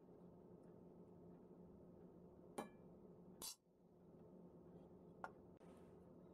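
Near silence, with three faint clinks of a spoon against the wok as fried rice is scooped onto a plate.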